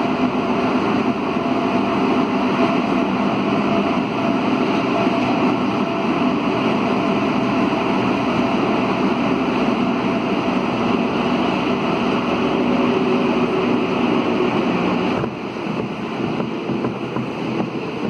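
Running noise heard from inside a CAF NS-07 rubber-tyred metro train moving at speed through a tunnel: a loud, steady rush with a faint steady tone in it. About fifteen seconds in it suddenly drops and gets quieter as the train comes out of the tunnel into a station.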